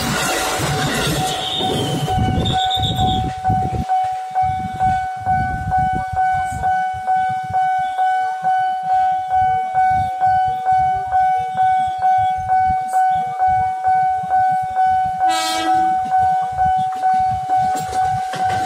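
Level-crossing warning bell ringing about twice a second, at first under the rumble of an electric commuter train's cars rolling past. The rumble fades after two or three seconds, leaving the bell. A short horn blast comes about three seconds before the end, from the approaching JR 205 KRL electric train.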